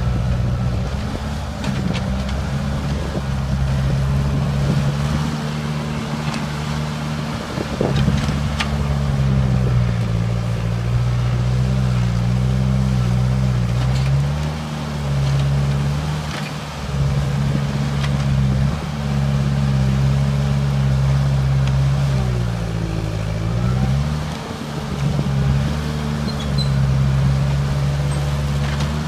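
Crawler loader's engine working under load, its pitch rising and falling again and again as it pushes at a tree stump. A few sharp knocks come through, most plainly about eight seconds in.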